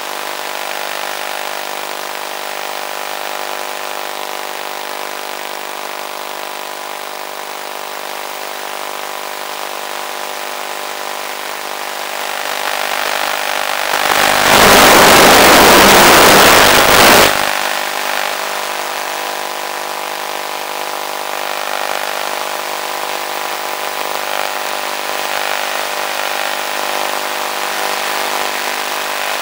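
Electric motor and propeller of an FPV model plane, heard from on board, running steadily at cruise throttle. About 14 seconds in, a loud rushing noise drowns it out for three to four seconds, and then the steady motor sound returns.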